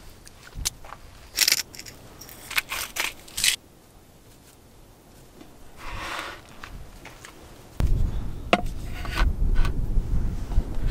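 Crackly scrapes and crunches of a bagel sandwich being assembled on a wooden cutting board: a cluster of sharp ones in the first few seconds, then a softer crunch around six seconds in as the toasted top is pressed down. About eight seconds in, a loud low rumble of wind on the microphone takes over.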